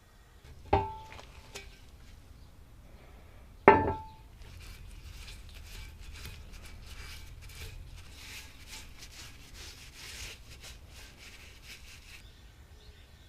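Two sharp metal knocks about three seconds apart, each with a brief ring, then several seconds of rapid scraping or rubbing that stops suddenly near the end.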